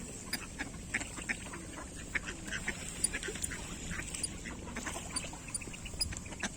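Mixed flock of ducks and geese calling, with many short quacks overlapping one another throughout.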